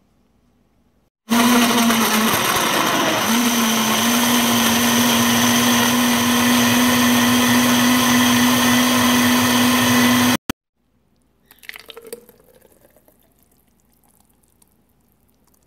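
Vitamix blender motor running at speed, blending a spinach and fruit smoothie, with a steady hum whose pitch dips briefly soon after starting. It runs for about nine seconds and stops suddenly, followed by faint handling sounds.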